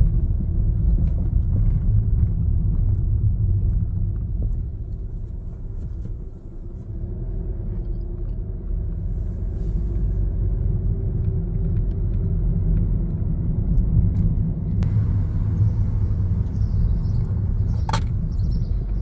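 Car driving, heard from inside the cabin: a steady low engine and road rumble that drops briefly about six seconds in and then builds again. A short click comes near the end.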